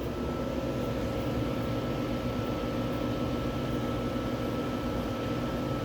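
Steady machine hum with fan noise, joined right at the start by a thin, steady high whine.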